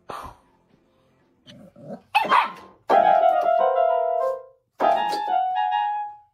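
A puppy barks and paws at an electronic keyboard. The keys sound held notes in two stretches, about three seconds in and again about five seconds in.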